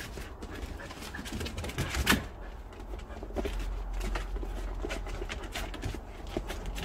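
Light taps, clicks and scuffs of dogs' paws and feet moving about on a wooden deck, with one sharper knock about two seconds in.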